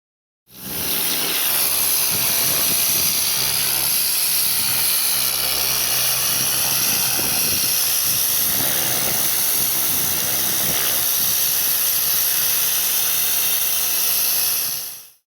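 Bosch Aquatak 135 electric pressure washer spraying concrete: a steady, loud hiss of the high-pressure water jet with a low pump hum underneath. It fades in about half a second in and fades out just before the end.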